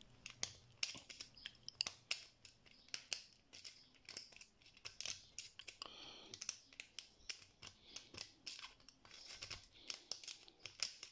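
Double half diamond lock pick clicking and scraping against the spring-loaded sliders of a slider lock held under tension: a faint, rapid, irregular run of small metallic ticks, with a brief scrape about six seconds in.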